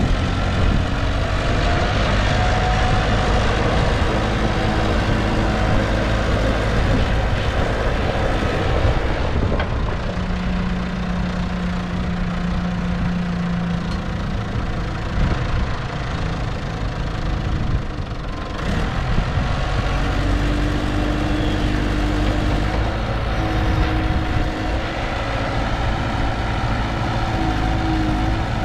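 1995 JCB 3CX backhoe loader's diesel engine running steadily, its note changing a few times, around ten and twenty seconds in.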